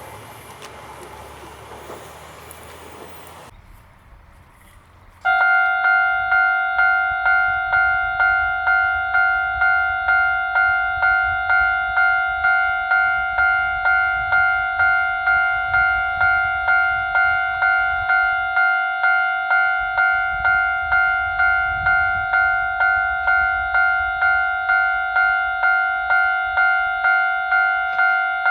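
Japanese railway level-crossing alarm starting about five seconds in, clanging in a steady rhythm of about three strikes every two seconds, each a ringing tone that dies away before the next. Before it, the fading noise of a passing train breaks off.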